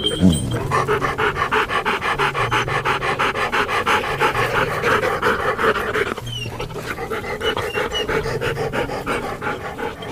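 A dog panting fast and evenly, over background music with a low bass line.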